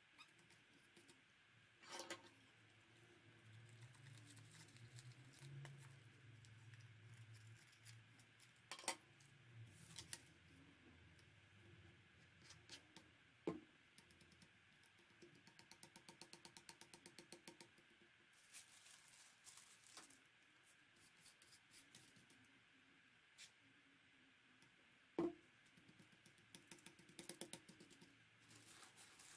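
Faint handling of tissue paper and card on a wooden tabletop: soft rustling, a few light taps and knocks, and a run of rapid small clicks about halfway through.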